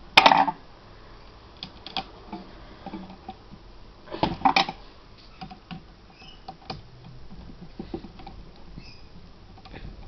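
Small clicks and taps of a screwdriver and loose screws on a netbook's plastic case as the screws are driven back in, with two louder clusters of clattering knocks, just after the start and about four and a half seconds in.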